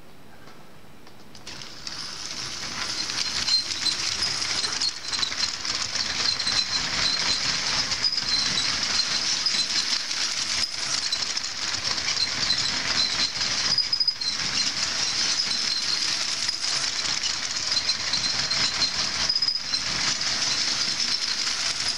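A Lego train motor starts up about a second and a half in, then runs steadily with a high whine as the locomotive's wheels rattle along plastic Lego track, dipping briefly every few seconds.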